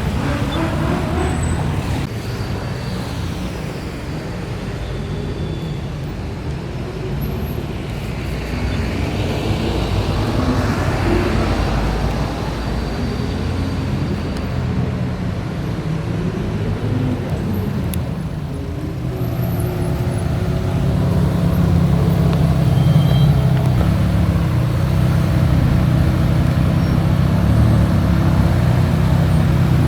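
Ferrari sports car engines running in slow parade traffic, their pitch rising and falling as cars pass and blip the throttle. About two thirds of the way in, a steadier, louder low engine sound takes over.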